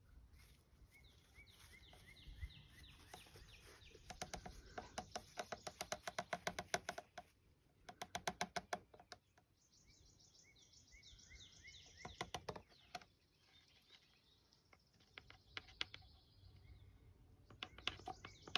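Birds singing: quick runs of falling high chirps, broken by louder bursts of rapid rattling notes.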